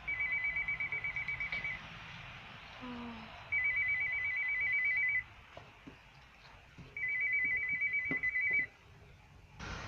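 Apartment entrance door intercom sounding its call tone while calling a flat: three bursts of a fast-warbling high beep, each about a second and a half long, with pauses of about the same length between. Just before the end a sudden hiss comes up on the line.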